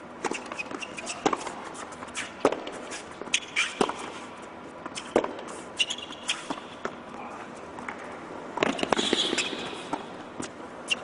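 Tennis rally on an indoor hard court: sharp racquet strikes on the ball and bounces, roughly one every second, with shoe squeaks on the court surface. A brief louder rush of noise comes about nine seconds in.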